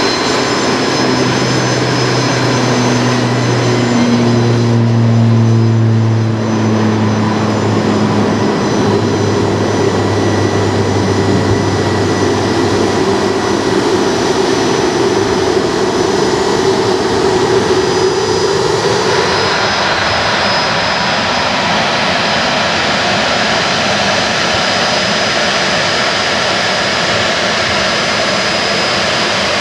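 Bombardier Challenger business jet's two rear-mounted turbofans running at taxi power: a steady jet whine and rush with several tones, the lower ones shifting in pitch over the first several seconds. The sound changes abruptly about twenty seconds in.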